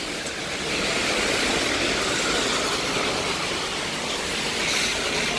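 Traffic on a wet city road in the rain: a steady hiss of car tyres on wet tarmac and falling rain, swelling about a second in and easing off as cars go by.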